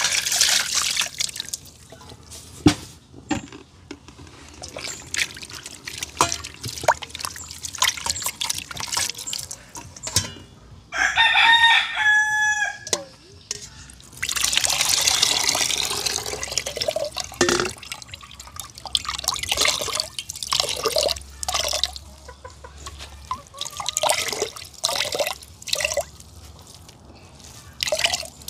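A rooster crows once, about 11 seconds in, over splashing and pouring water with scattered knocks and clinks.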